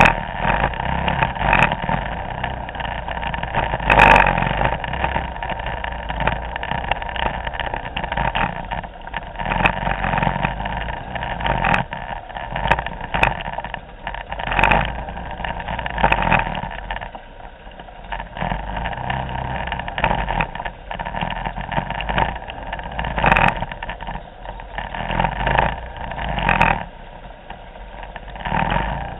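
Many Vespa scooters running at low speed in a slow, crowded queue, a steady mix of small engines, broken by a few short knocks.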